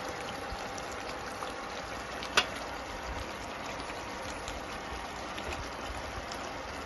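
Pork curry simmering in a pan on an induction cooktop, a steady bubbling hiss. One sharp click sounds about two and a half seconds in.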